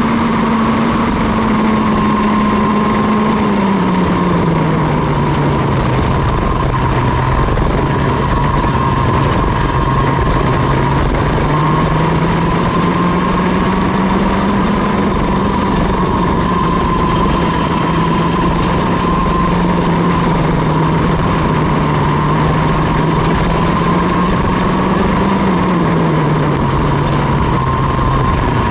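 Vortex Mini ROK 60cc two-stroke kart engine running hard under racing load, heard on board. Its pitch drops about four seconds in, climbs back over the next ten seconds, holds, and drops again near the end as the throttle comes off and goes back on through the corners.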